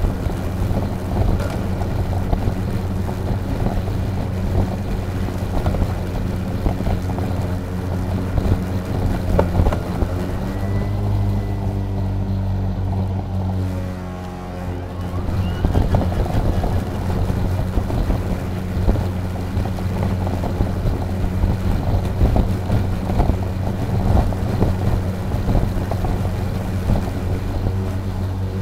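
EGO Power+ LM2135SP 56 V battery self-propelled lawn mower running and cutting grass: a steady electric-motor hum under the rough rush of the blade going through the grass. The sound eases briefly about halfway through, then picks up again.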